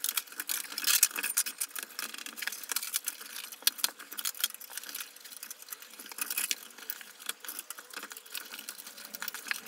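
PC power and SATA cables being handled and pushed through a metal drive cage: a run of irregular light clicks, ticks and rustles from plastic connectors and cable sleeving against the case.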